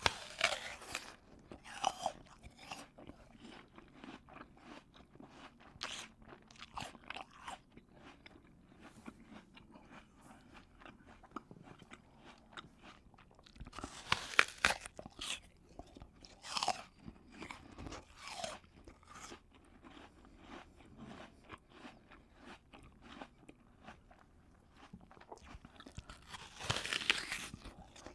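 A person biting into a crisp apple and chewing it, wet and crunchy. There are three loud bites, near the start, about halfway through and near the end, with steady crunching chews between them.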